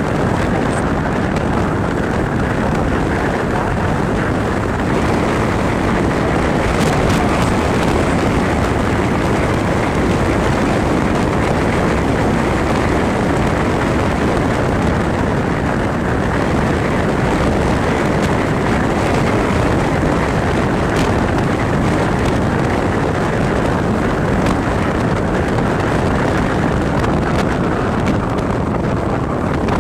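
Steady wind rush buffeting the microphone of a phone held out by a rider on a moving motorcycle, mixed with road noise.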